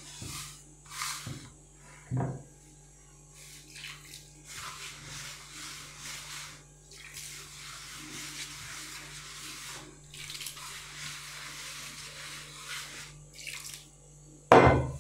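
Hands mixing and kneading wet semolina dough for kesra in a bowl, in intermittent watery squelching strokes broken by short pauses, with a few light knocks near the start.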